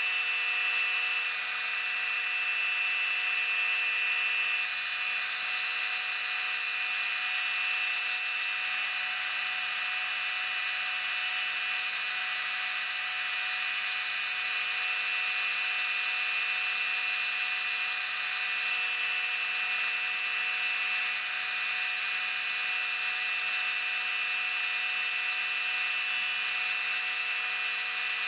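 Wood lathe running steadily, its motor giving a constant whine over an even hiss from the spinning workpiece.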